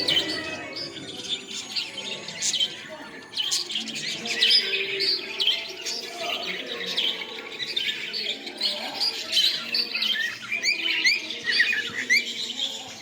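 A group of small birds chirping and calling at once, with many quick, high, overlapping chirps and short rising and falling notes.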